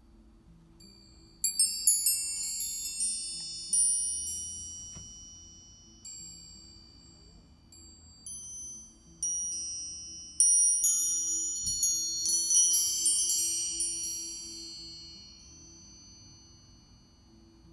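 Chakra wind chimes with hanging metal tubes, knocked by hand so that clusters of high, bell-like tones ring out in several bursts, each dying away slowly. The ringing fades out near the end.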